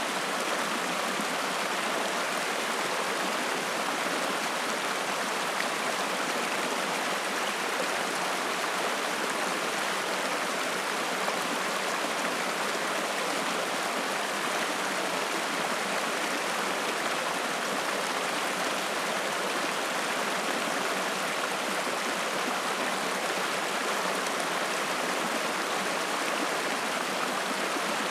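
Mountain stream rushing and splashing over rocks, a steady, even rush of water.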